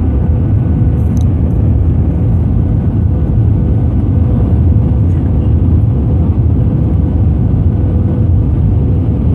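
Airliner cabin noise on final approach, flaps extended: a loud, steady low rumble of engines and airflow with a faint steady hum running through it.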